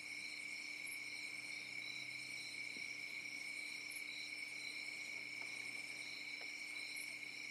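Night chorus of crickets and other insects: a steady high trill with a higher, pulsing call repeating over it.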